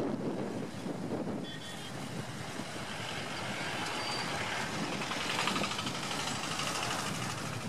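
Wind buffeting the microphone over a low, steady rumble, with a few faint short tones about a second and a half in.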